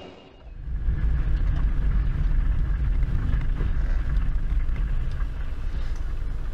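A car driving, heard as a steady low road-and-engine rumble that starts abruptly about half a second in.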